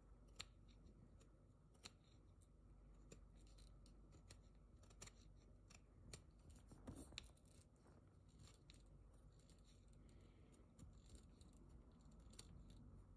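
Faint, scattered snicks and light scraping of a small knife blade trimming the ends of horsehair at a violin bow's tip plug.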